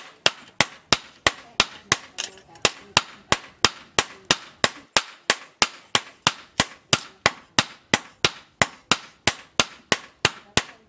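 Hand hammer striking a hot steel knife blade, cut from a tractor disc, on a stake anvil: steady sharp metal-on-metal strikes at about three a second.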